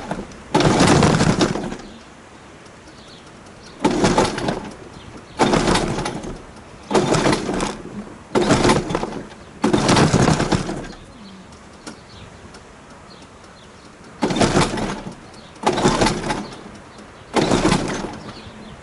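Recoil pull-starter on a go-kart's Tecumseh small engine yanked over and over, about ten pulls of roughly a second each. The engine cranks but does not catch and run between pulls: it won't start.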